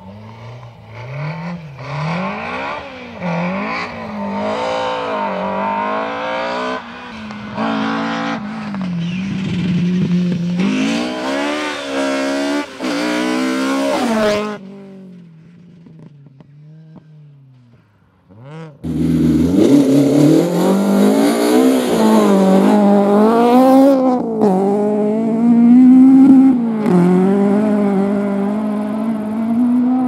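Rally car engines run at full throttle, revs climbing and dropping again and again as the drivers shift gears and lift through the corners. The sound cuts off suddenly about halfway through, stays faint for a few seconds, then a second car comes in loud at high revs.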